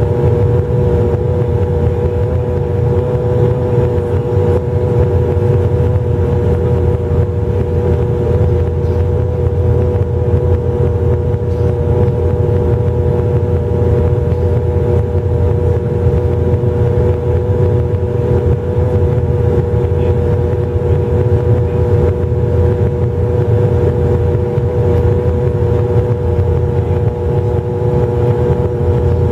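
Bombardier Q400's Pratt & Whitney PW150A turboprops and propellers heard from inside the passenger cabin on final approach with the landing gear down: a loud, steady drone with a held mid-pitched tone over a low rumble.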